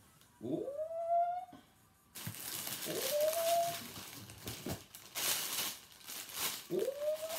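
Plastic packaging crinkling and rustling as a plastic-bagged hoodie is pulled out of a cardboard box and handled, starting about two seconds in. Three drawn-out vocal calls rise in pitch and then hold, near the start, around three seconds in and near the end.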